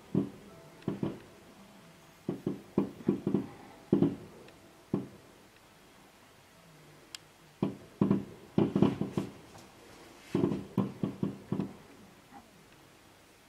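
Professional fireworks display: volleys of sharp bangs from aerial shells bursting, in quick clusters of several shots, with a lull of about two seconds midway.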